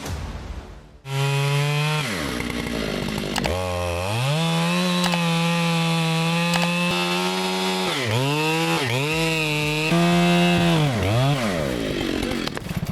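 Two-stroke chainsaw running, opened up to high revs about a second in and held at full throttle. Its revs dip sharply a few times in the second half and fall away near the end.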